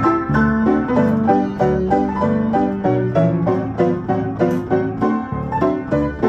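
Player piano playing a paper music roll: a quick run of piano chords and melody notes.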